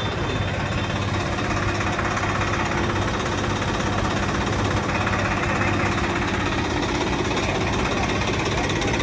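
Swaraj 963 FE tractor's three-cylinder diesel engine idling steadily.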